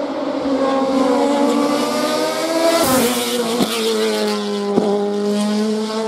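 Hillclimb race car engine at full throttle, its note climbing as it accelerates, with three sharp cracks at quick gear changes about three, three and a half and five seconds in.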